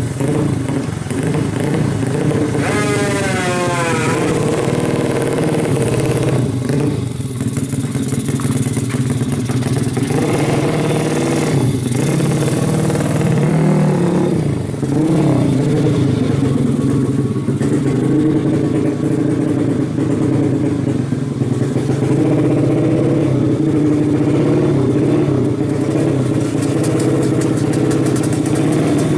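Suzuki Satria 125cc two-stroke motorcycle engine with an expansion-chamber exhaust, running hard on a tuning test run. The revs climb steeply in a rising whine a few seconds in, then keep going up and down.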